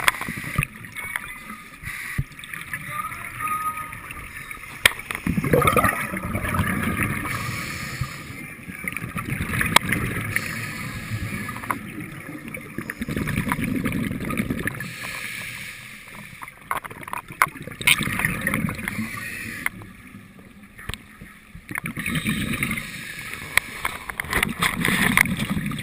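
Scuba diver breathing through a regulator underwater, heard through a camera housing: exhaled bubbles rumble out in swells every few seconds, with scattered clicks in between.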